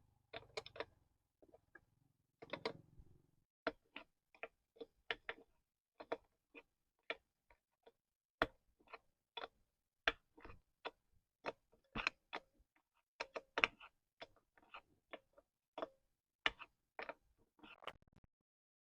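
A series of sharp clicks and taps, irregularly spaced at one to three a second, stopping shortly before the end.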